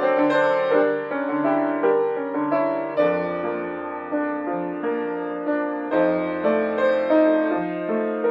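Solo piano playing a moderately paced passage of chords and melody, notes struck about twice a second, with deep bass notes added about three seconds in and again near six seconds.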